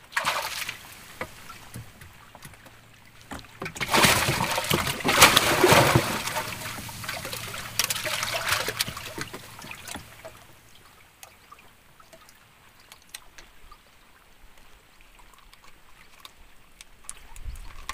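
A hooked fish splashing and thrashing at the surface of the river beside a small boat, in a short burst at the start and a longer, louder spell from about four to nine seconds in, then quieter water with a few small clicks.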